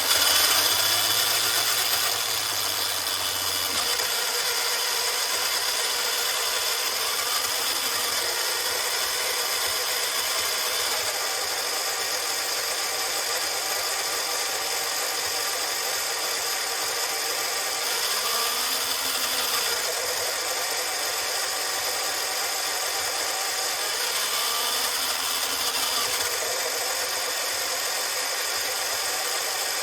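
Arrma Kraton RC truck's electric motor and drivetrain running steadily at low throttle, a continuous high whine with gear noise, while the new differentials are being broken in.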